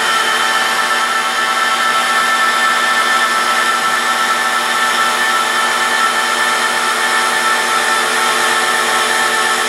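Makita electric rotary polisher running steadily with a green foam pad, buffing resin polish into a quartz countertop: an even motor whine.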